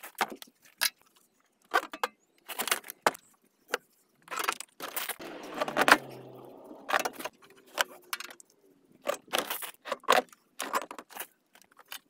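Irregular metallic clinks and clatter of nuts, tools and metal battery hardware being handled. About five to six seconds in, a cordless power tool runs briefly.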